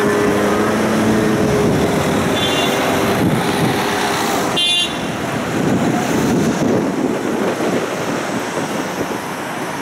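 Tram running through city traffic: a steady rumble and road noise, with a whine that fades over the first couple of seconds. A short high tone sounds about two and a half seconds in, and a louder, brief high-pitched toot about halfway through.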